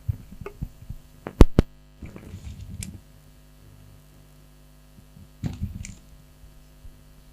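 Microphone handling noise: a few knocks, two sharp loud ones about a second and a half in, then rustling and another brief cluster of knocks near the end, over a steady electrical hum.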